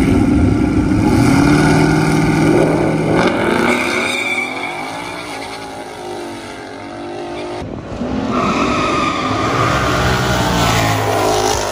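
Twin-turbocharged 2019 Ford Mustang GT's 5.0 Coyote V8 revving hard through a burnout, rear tyres spinning and squealing, then falling away as the car rolls forward. About eight seconds in, after a sudden break, the engine revs rise again.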